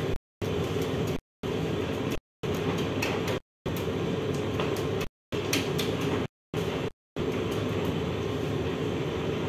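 Steady low mechanical roar of working bakery equipment, with a few light knocks of dough work at the oven. The sound drops out to total silence for a split second roughly once a second.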